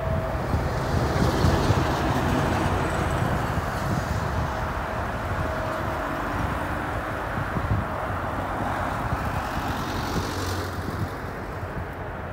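Boeing 777-200's twin jet engines at takeoff thrust, a steady loud rumble as the airliner accelerates down the runway away from the listener and lifts off, easing a little near the end.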